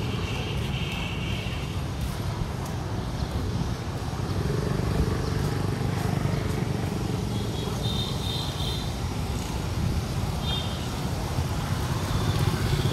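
Motorbikes running past on a paved lane, over steady low outdoor noise, with the engine sound growing louder about four seconds in and again near the end.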